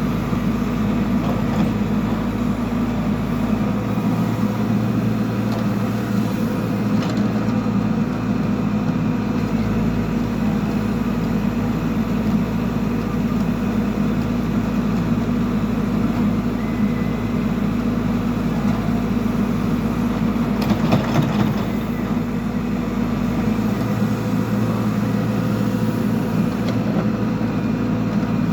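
Backhoe loader's diesel engine running steadily under work, a continuous low drone, with a brief louder burst of noise about three quarters of the way through.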